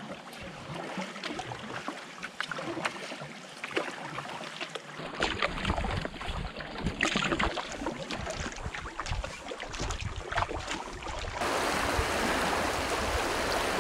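Canoe paddling on calm water: splashing and dripping from the paddle strokes, with water lapping at the hull and many small splashes and knocks. About eleven seconds in it switches abruptly to a steady, even rushing noise.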